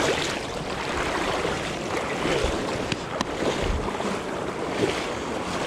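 Fast, high river current rushing and splashing around a wading angler's legs close to the microphone, with a few sharper splashes and some wind buffeting the microphone.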